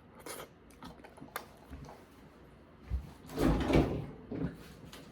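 Handling noises: a few light clicks, a sharp one about a second in, then a louder scraping rustle with low thumps around three to four seconds in, like a drawer or container being opened.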